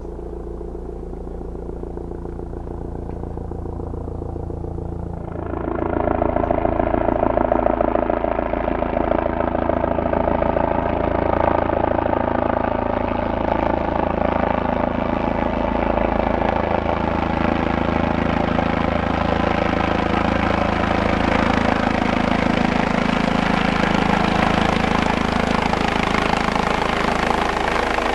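Bell 427 twin-turbine helicopter coming in to land, its rotor beating over the engines. The sound builds and jumps louder about five seconds in, then stays loud and steady, with a thin high whine joining past the middle.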